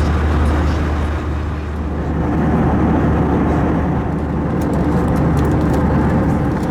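Steady Airbus A321 cabin noise: a constant low engine hum under a broad rush of air, with a few faint ticks about two-thirds of the way through.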